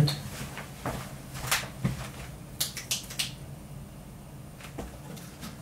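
Scattered light knocks and clicks from a person getting up from a chair and moving about a small room, handling things, with a cluster of clicks about three seconds in. A faint steady low hum runs underneath.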